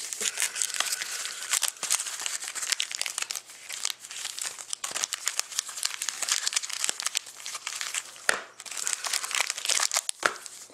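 Foil wrappers of Panini Rookie Anthology hockey card packs crinkling as hands handle them, full of small crackles and clicks.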